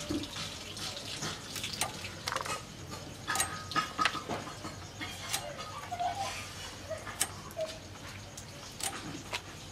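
Scattered sharp clicks and cracks of crab shells and claws being cut and handled on a boti blade.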